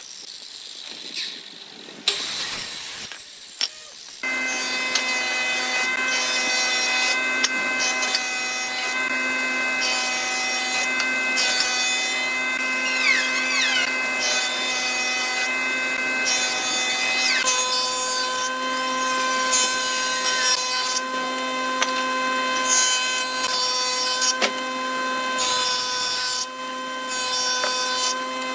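An electric woodworking power tool starts about four seconds in and runs with a steady whine. Its tone shifts once, just past the middle.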